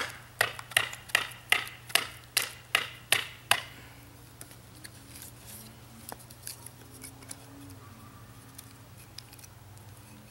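A wooden baton striking the spine of a Bark River Bravo 1.5 knife in A2 steel, driving the blade down through a stick to split it, about ten sharp knocks at roughly three a second over the first three and a half seconds. After that come only faint small cracks and ticks as the split wood is worked apart by hand. The stick is splitting poorly.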